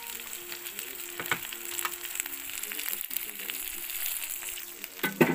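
Green peas and cauliflower sizzling in hot mustard oil in a pressure cooker, with a steel ladle scraping and clinking against the pot. The loudest clinks come near the end.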